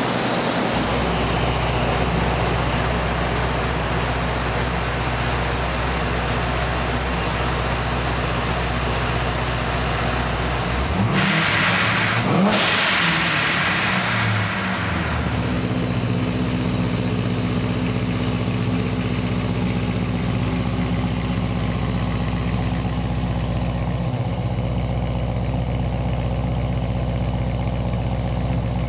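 Heads-and-cam Chevrolet Camaro Z28's LS7 V8 running at idle. One rev about eleven seconds in rises and falls back over a few seconds, then it settles back to a steady idle.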